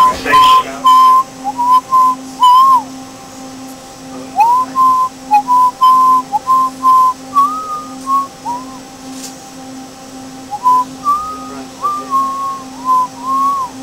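A person whistling a tune: short high notes with small slides up and down between them, in phrases broken by pauses of a second or so. Under it runs an even low pulse, about two beats a second.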